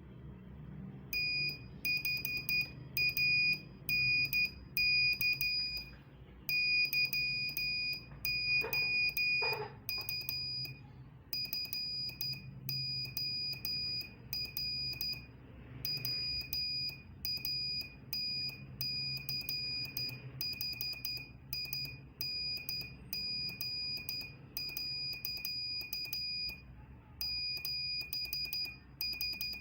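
Morse code (CW) tone: a single high-pitched beep keyed on and off in short and long elements, with sharp clicks at each key-down and key-up, over a low steady hum. The keying gets somewhat quieter about eleven seconds in.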